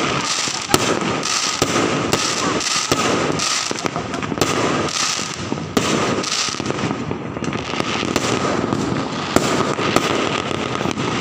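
New Year fireworks and firecrackers going off nonstop: a dense, steady crackle with many sharp bangs, and a thin steady tone running underneath.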